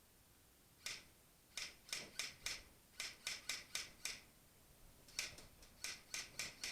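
A series of about twenty short, sharp clicks in two irregular clusters, a few per second.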